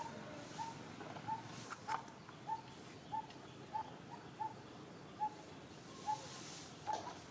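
A bird calling a single short, clear note over and over, about one to two notes a second, with a sharp click about two seconds in.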